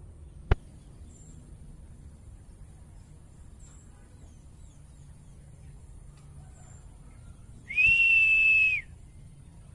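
A sharp click about half a second in, then near the end a single steady high-pitched whistle lasting about a second.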